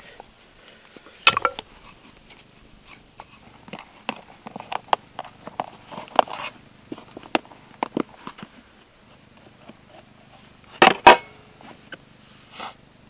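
Camp handling sounds: a plastic food container clicking and rattling in the hands, then set down on the ground with a loud double knock about eleven seconds in. A single sharp knock comes just over a second in.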